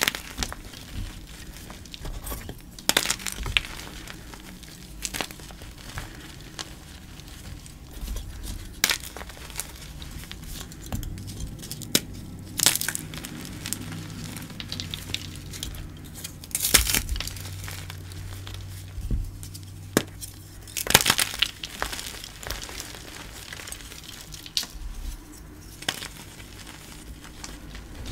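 Hands crushing and crumbling dyed gym chalk pieces and powder: irregular dry crunches and crackles with soft powdery rustling between them, and a few louder crunches scattered through.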